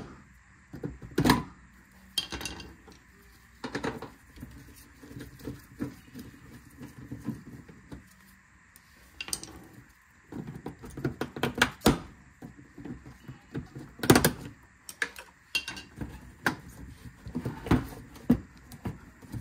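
Irregular clicks, taps and clatter of hand tools and plastic trim clips and screws being worked loose from a car's bumper and fender liner, with a louder knock about fourteen seconds in.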